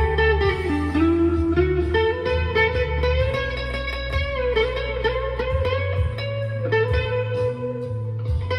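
Chapman ML1 Pro Hybrid electric guitar playing a single-note lead melody with string bends and vibrato, in a clean tone with delay and reverb, over steady low notes.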